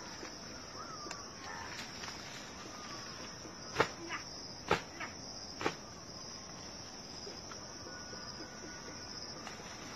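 Steady high-pitched insect chirring, with a few sharp clicks around the middle.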